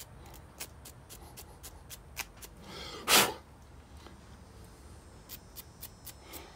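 Small wire brush scrubbing a small carburetor part by hand, making sharp, irregular scratching clicks. About three seconds in there is one short, loud rush of breath.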